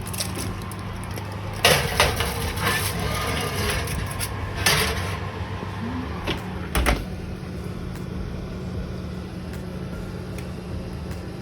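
Kitchen handling sounds: a metal tray and dishes clattering, with sharp knocks about two seconds in, near five seconds and about seven seconds in, over a steady low hum.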